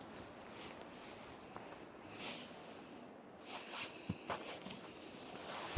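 A few soft, faint footsteps in snow over a quiet outdoor hiss, with a couple of small ticks.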